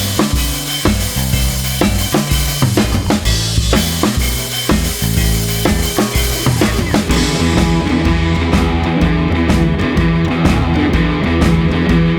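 Background rock music: a drum-kit beat with bass, joined by sustained guitar chords about seven seconds in.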